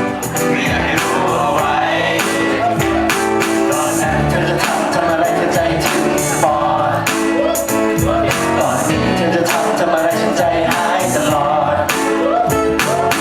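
Song with singing over a steady drum beat.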